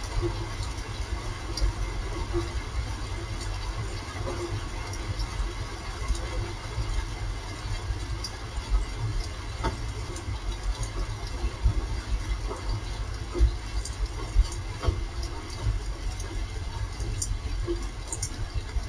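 Rain falling steadily, a continuous hiss with scattered drip ticks over a low rumble.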